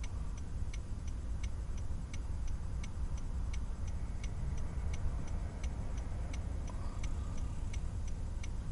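A car's turn signal ticking steadily, a little over two ticks a second, over the low rumble of the idling engine, heard inside the cabin.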